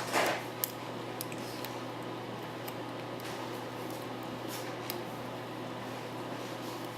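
Lock pick and tension wrench working the pins of a Hurd padlock: a short rustle at the start, one sharp click just after, then faint scattered ticks of the pick. A steady low hum runs underneath.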